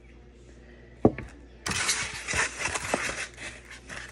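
A single sharp knock about a second in, then the crinkling and rustling of clear plastic wrapping being handled and pulled open.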